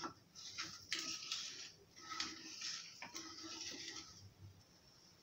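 Wooden spatula stirring milk and sugar in a steel pan, scraping the bottom in repeated strokes with a few light knocks against the pan, to keep the thickening milk from sticking. The stirring stops about four seconds in, leaving a faint hiss.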